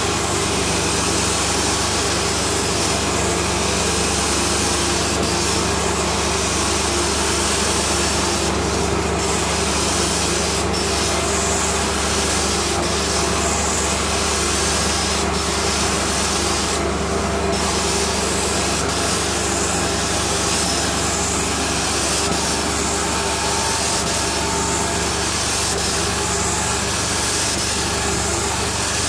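Mytee 8300EZ two-jet carpet cleaning wand spraying and extracting as it is worked across carpet, giving a steady loud rush of suction and spray over the hum of the truck-mount machine. The high hiss briefly dips twice, about nine and seventeen seconds in.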